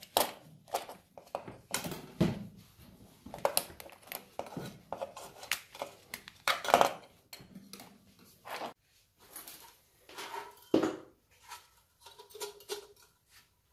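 Rusty metal parts of an old Feuerhand hurricane lantern clinking and knocking as they are handled and set down, in an irregular run of knocks with two louder ones, in the middle and about three quarters through.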